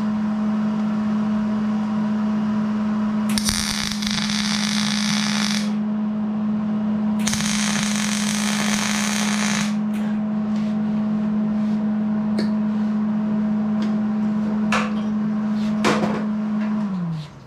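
Two arc-welding tacks on steel tubing, each a crackling, hissing burst of about two and a half seconds, a second or so apart. A steady hum runs underneath and slides down in pitch and stops near the end, with a few sharp knocks before that.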